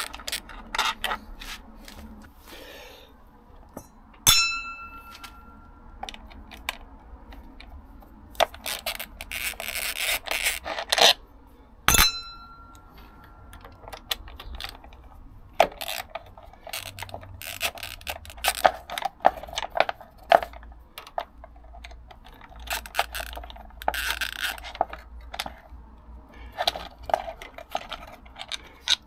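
Hand ratchet clicking on the sprocket-cover bolts of a Royal Enfield Hunter 350, then metal bolts and tools clinking and scraping as they are handled. Two sharp metallic strikes ring out, about 4 and 12 seconds in.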